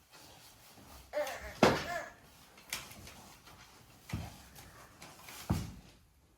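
A handful of sharp knocks or thumps in a small room, spaced one to one and a half seconds apart, the loudest about one and a half seconds in. A short wavering squeal comes just before the loudest knock.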